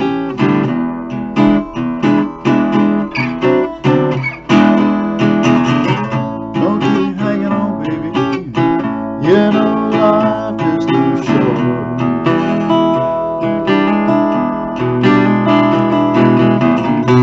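Guild Artist Award archtop guitar, made in 1970, played unplugged: chords strummed and picked with a steady flow of notes.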